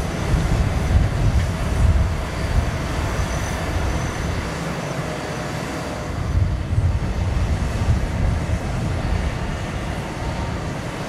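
Jet airliner noise on an airport apron: a steady, heavy low rumble that swells and eases, with a faint steady whine above it.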